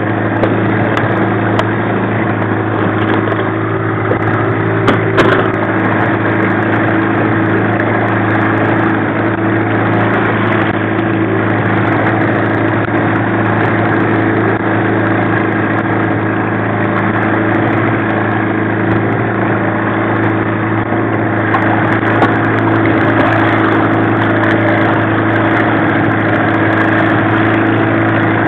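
1995 15 hp Mariner two-stroke outboard running steadily at trolling speed, an even, unchanging drone. A couple of light knocks come about five seconds in.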